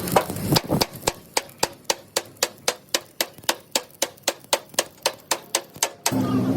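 Hammer striking steel in quick, even blows, about four a second, then stopping abruptly about six seconds in.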